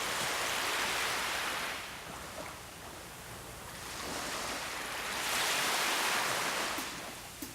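Ocean surf: a wave washes up and recedes in the first two seconds, and a second one swells from about four seconds in and fades near the end.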